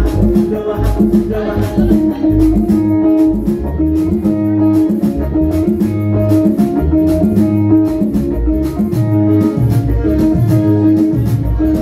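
Music with a steady beat: a plucked-string melody over a strong bass line and regular percussion.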